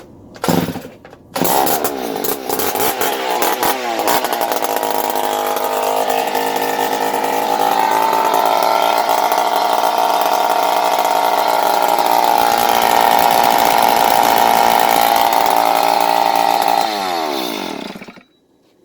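Stihl TS 420 cut-off saw's two-stroke engine, started on half choke: a brief burst, then it catches about a second in and runs loud, climbing in speed over the next few seconds and holding high. Near the end it winds down with falling pitch and stops.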